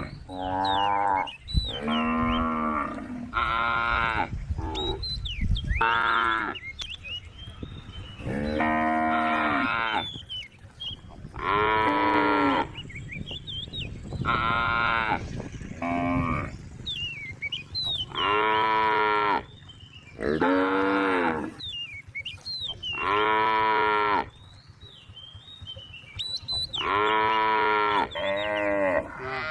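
Several cows mooing in turn, about fourteen calls of roughly a second each, one after another and sometimes overlapping.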